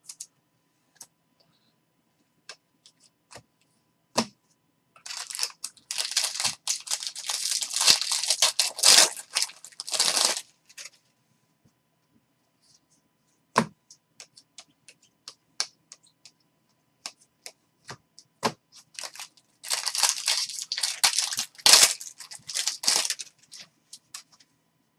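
A stack of baseball trading cards being thumbed and flicked through by hand: two long spells of papery flicking, about five seconds in and again near twenty seconds, with scattered single clicks and taps between.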